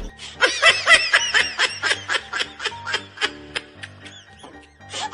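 A fast run of high-pitched giggles, about five a second, that slows and fades out, with faint music underneath.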